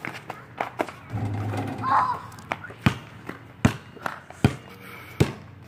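Basketball dribbled on an asphalt driveway: a run of sharp bounces, evenly spaced about three every two seconds in the second half.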